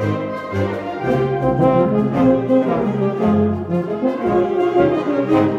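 Ensemble music with a euphonium played close by among the brass, in held notes in its middle and low range.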